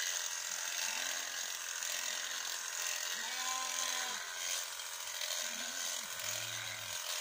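Electric sheep-shearing clippers running steadily as they cut through a sheep's fleece, a continuous high buzzing chatter.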